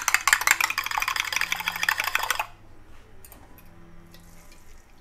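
Eggs being whisked briskly in a glass bowl: a fast run of clicks of the utensil against the glass, which stops about two and a half seconds in.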